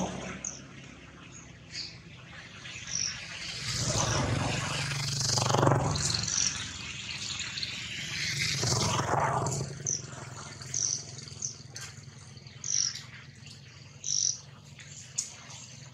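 Birds chirping in short, high calls scattered throughout, with a low rushing noise swelling up twice, around four and nine seconds in.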